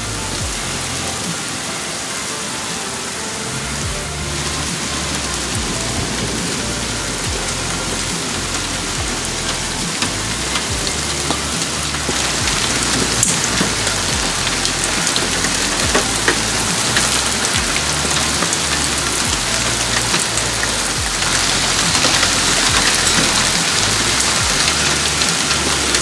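Heavy rain mixed with hail pouring down, with many small ticks of impacts, growing louder about halfway through. A background music track with a low bass line runs underneath.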